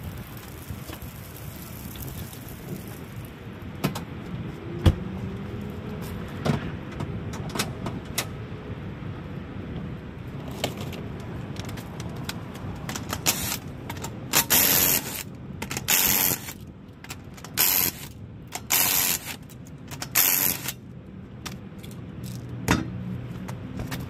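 Scattered clicks and metal knocks, then about halfway through a cordless impact wrench rattles in about six short bursts, spinning the lug nuts off a Nissan Pathfinder's front wheel.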